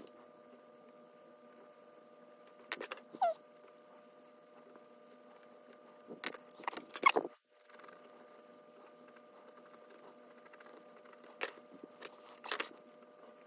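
Pilot Kesarame erasable gel pen drawing on paper: a few short clusters of quick scratchy strokes, about three seconds in, around six to seven seconds, and twice near the end, over a faint steady background.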